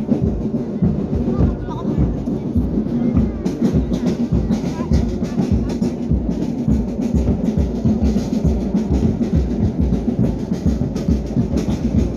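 Music with a steady, heavy drum beat.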